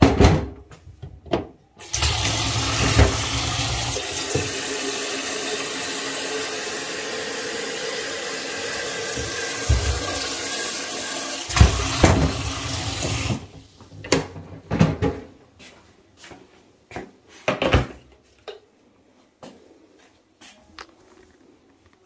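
Kitchen tap running water into an electric kettle for about eleven seconds, starting and stopping abruptly. A few knocks and clicks come before and after it, as the kettle and lid are handled.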